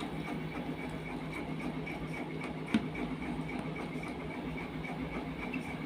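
A small motor hums steadily with a fast, even pulse. One sharp click comes near the middle.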